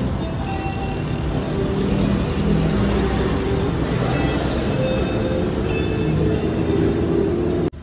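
Busy multi-lane city road traffic: a steady, dense noise of vehicle engines and tyres, with brief engine tones standing out now and then. It cuts off suddenly near the end.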